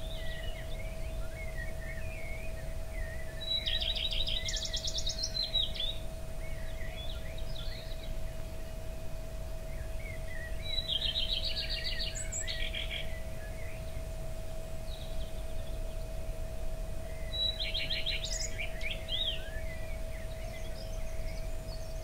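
A songbird singing three phrases about seven seconds apart, each a fast trill of rapidly repeated high notes, with fainter scattered chirps between them. Under it runs a steady low rumble and a faint steady hum.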